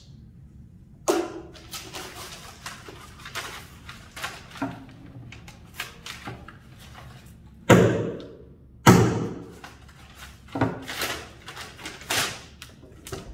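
Hammer driving nails into a door: separate knocks at an uneven pace, the two loudest about a second apart past the middle, with lighter taps between.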